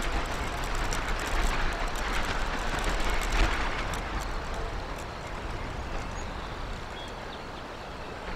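Wind buffeting the outdoor nest-camera microphone: a low rumbling rush that gusts, then eases after about four seconds.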